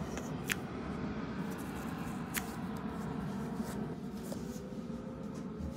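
Indoor ambience: a steady low hum with a few sharp small clicks. About four seconds in, a faint outdoor warning siren starts to wind up, a steady tone rising slightly in pitch.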